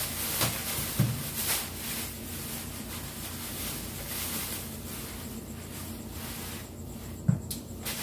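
Plastic produce bag rustling as cucumbers are handled, with a few soft knocks early on and a single sharp tap a little past seven seconds in, over a low steady hum.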